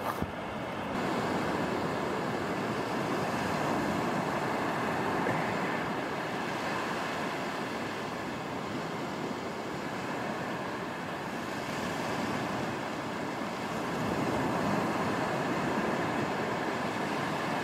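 Sea surf breaking and washing up a flat sandy beach: a steady rush that swells and eases gently as the waves come in.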